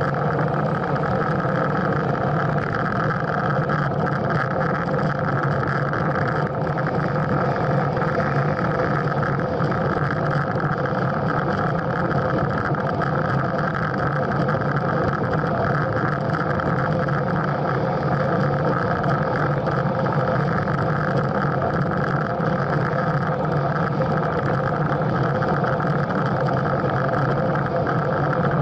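Steady rushing wind and road noise on a handlebar-mounted action camera's microphone as a road bike descends at about 35–38 km/h.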